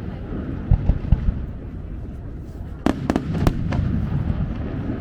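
Aerial fireworks bursting: a continuous low rumble of shells, deep booms about a second in, then a quick cluster of four sharp cracks around three seconds in.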